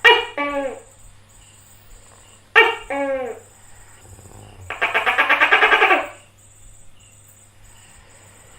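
Gecko calling: two loud two-part calls about two and a half seconds apart, each a pair of quickly falling notes, then a rapid rattling chatter about a second long near the middle.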